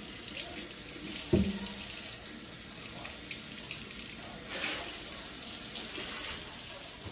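Kitchen faucet running into a stainless steel sink as potatoes are rinsed by hand under the stream, the splashing brightening about two-thirds of the way through. A single sharp knock about a second in.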